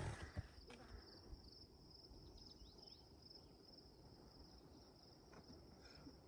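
Faint, steady high-pitched insect trilling, a rapid pulsing chirr that holds on without a break, over a low background rumble.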